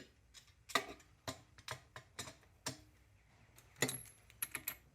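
Sharp metallic clicks and ticks, about two a second and unevenly spaced, from a wrench working the Triumph gearbox's sprocket nut loose. A few brief bright metal rings come near the end.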